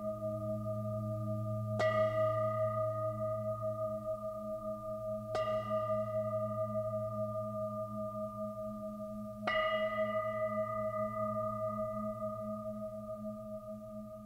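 Bowl bell struck three times in a sparse film-score passage. Each strike adds a bright clang that fades over a few seconds, over a low, wavering hum that rings on between strikes and slowly fades near the end.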